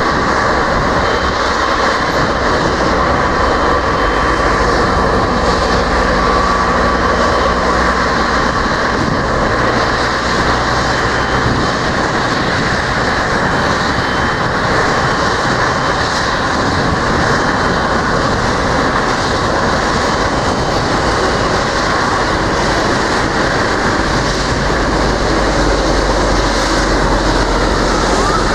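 Boeing 777-300ER's twin GE90 turbofans running steadily: a broad, even rushing noise with a faint high whine.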